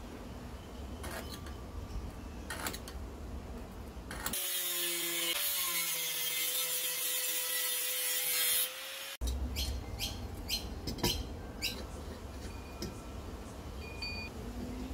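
Angle grinder with a cut-off disc cutting through steel flat bar: a loud steady whine over a hiss starting about four seconds in and stopping abruptly about five seconds later. Before it, faint scratching and handling of the bar; after it, a run of sharp metal clicks and knocks as the cut pieces are handled.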